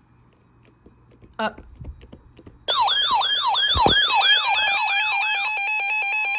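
Emergency alert tone going off for a severe thunderstorm warning. About two and a half seconds in it starts loud, with a quick series of falling siren-like sweeps, about three or four a second, which give way to a steady, rapidly pulsing two-tone beep.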